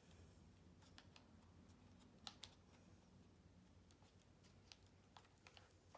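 Near silence with faint, scattered small clicks and ticks of laptop display parts being handled and fitted, the loudest a little over two seconds in.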